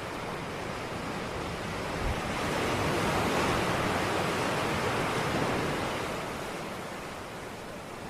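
Ocean waves washing onto a shore: one swell of surf builds about two seconds in, peaks, and slowly recedes.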